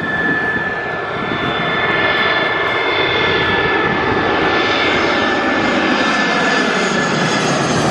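Aer Lingus Airbus A320-family twin-engine jet airliner on final approach, passing low overhead with its engines running at approach power. The noise grows over the first couple of seconds and then holds, with a steady high whine from the engines over the rumble, and some lower tones sweeping in pitch as it goes over.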